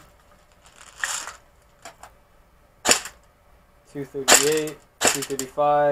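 Gate Titan–equipped MK18 airsoft electric rifle fired single shots into a chronograph: sharp snaps spaced a second or more apart, then coming faster from about four seconds in.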